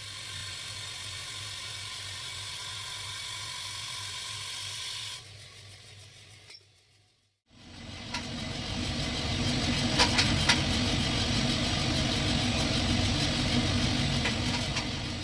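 Coffee roasting machinery running with a steady hiss, then, after a cut, a louder steady hum with a few sharp cracks.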